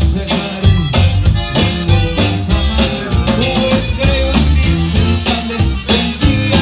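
Live conjunto tejano band playing at a steady dance beat: button accordion over strummed guitar, electric bass and a drum kit.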